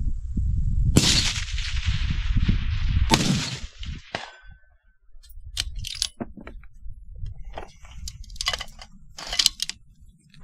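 Rifle shooting: two loud sharp reports about two seconds apart, each trailing off in a long echo, then a run of lighter metallic clicks and clinks.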